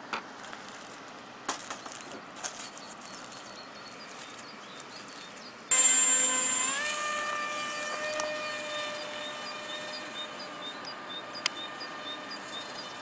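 Radio-controlled model aeroplane's motor in flight, a high-pitched whine that starts suddenly about halfway through, rises in pitch once, then holds steady and slowly fades. Before it, only a few faint clicks.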